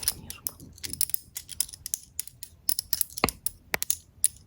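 Small dental-style tools being run over teeth in an ASMR roleplay: a quick, irregular run of sharp clicks and taps, with one stronger knock a little past halfway.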